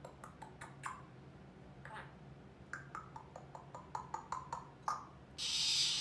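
African grey parrot making a quick run of short clicks and brief chirps, several of which drop slightly in pitch. Near the end comes a loud breathy hiss lasting about half a second.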